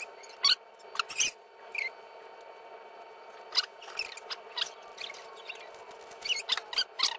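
Knife cutting and scraping into a yellowfin croaker's belly and skin on a paper towel over a glass dish: short crackly scrapes and clicks at irregular intervals, over a steady hum.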